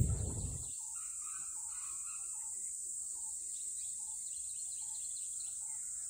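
A low rumble cuts off abruptly under a second in. It gives way to forest ambience: scattered short bird chirps over a steady high hiss.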